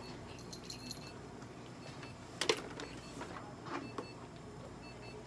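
Handling noises from a cat being held and stroked on a stainless steel exam table: soft rustling, with a sharp rustle or clink about halfway through and a smaller one a second later, over a steady low equipment hum.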